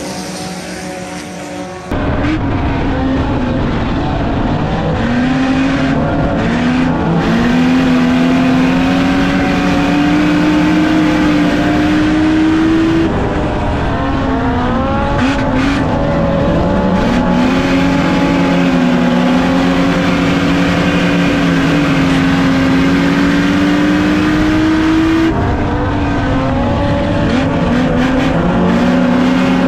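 Race car engine running hard at high revs on a dirt oval. Its pitch climbs slowly and drops sharply twice, about a third and about five-sixths of the way through, as the driver lifts off and gets back on the throttle. A different, quieter sound fills the first two seconds before the engine comes in abruptly.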